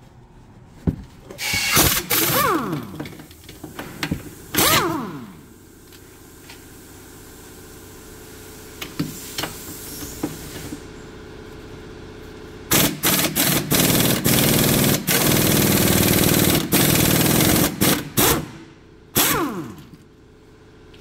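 Cordless power tool driving a socket on an extension at the rear brake caliper bracket bolts. It runs in two short bursts that wind down in pitch as they stop, then in a longer rattling run of about five seconds, then in one last short burst.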